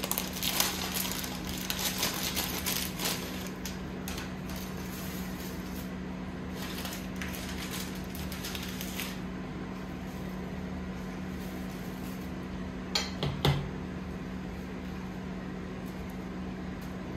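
Dry spaghetti rattling and clicking as a bundle is laid into a pan of meat sauce. Later a spatula pushes the strands down, with a couple of knocks against the pan about thirteen seconds in. A steady low hum runs underneath.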